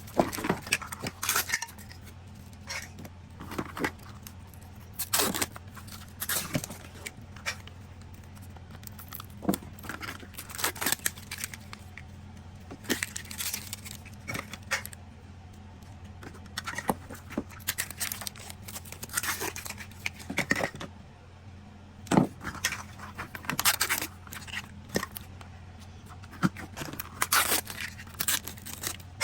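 Plastic Mini Brands toy capsules and their wrappers being handled and opened: irregular clicks, small rattles and crinkling of plastic.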